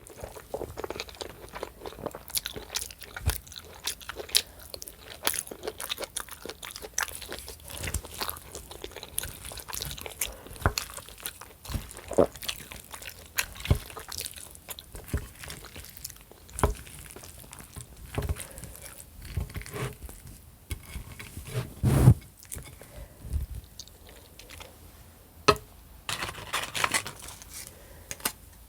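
A person chewing food close to the microphone: a continuous run of crunches and wet mouth clicks from mouthfuls of broccoli casserole. The loudest crunch comes about 22 seconds in.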